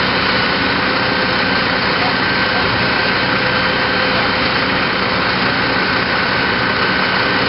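Fire engine's engine running steadily: a dense, even noise with a thin, steady whine over it.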